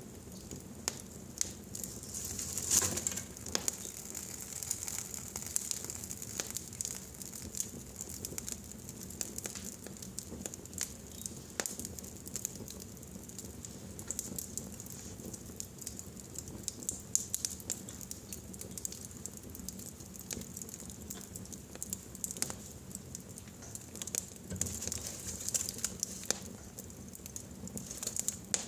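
Fire burning in a fireplace, crackling with a dense run of small sharp pops over a soft steady hiss. A louder flurry of pops comes about three seconds in, and another near the end.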